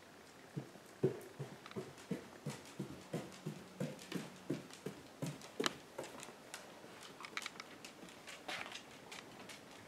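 Footsteps going down bare wooden stairs: a steady series of thuds, about three a second. After about six seconds they give way to lighter clicking of a dog's claws on a hardwood floor.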